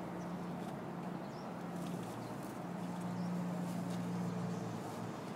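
Steady low engine hum that swells slightly in the middle, with a few faint high chirps over it.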